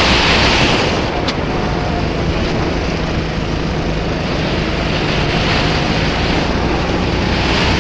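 Sodi RT8 rental kart's engine running at racing speed, mixed with heavy wind noise on the onboard camera's microphone. The sound dips slightly about a second in, then holds steady.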